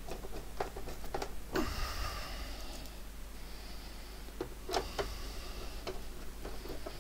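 Scattered light clicks and taps of a small screwdriver turning a screw into an Atari 800's plastic case bottom, and of tools being handled. A few sharper knocks come about a second and a half in and again near five seconds.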